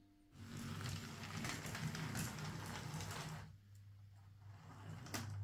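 Bachmann Ivatt 2MT OO gauge model tank locomotive running on track under DC power: its small motor and gears whirr over a low steady hum, louder for the first three seconds and then easing off, with one sharp click near the end. The running shows the drivetrain fault the repairer hears, a problem with the rear bogie, whose wheel is hardly turning.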